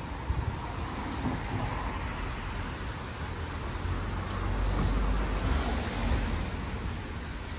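City street traffic noise, with a vehicle passing and swelling louder about halfway through.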